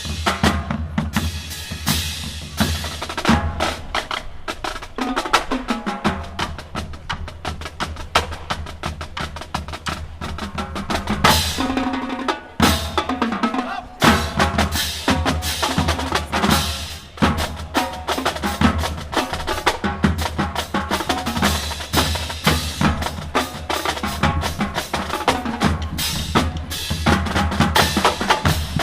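Drum-heavy music: rapid snare and bass drum strikes with drum rolls, beginning abruptly.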